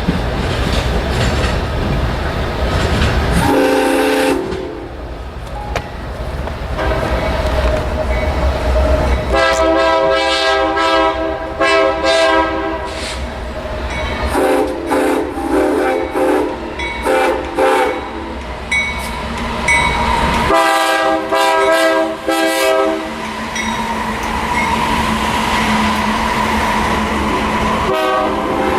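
Train passing with a low rumble and wheel clatter, then a locomotive air horn sounding several times: a short blast about four seconds in, then runs of short pulsed blasts and longer held blasts, each a chord of several notes.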